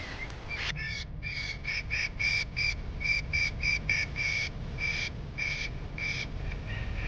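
A bird calling in a quick run of short, harsh, same-pitched notes, about three a second, that stops about six seconds in.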